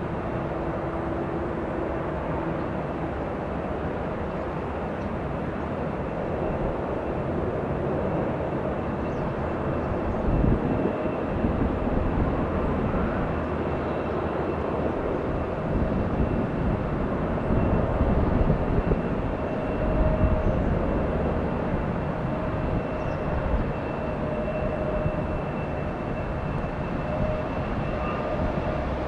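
Jet engines of a Boeing 747-400F on final approach: a steady rushing drone with a thin high whine, swelling somewhat louder as the aircraft nears.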